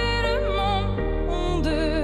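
Pop ballad played live: a woman sings held notes with vibrato over piano chords.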